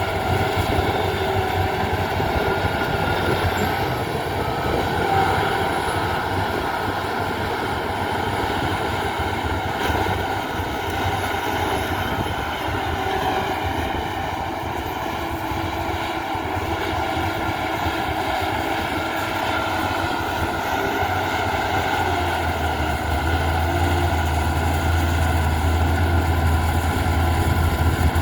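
Heavy earthmoving machine's diesel engine running steadily under work, its low rumble growing stronger in the last several seconds.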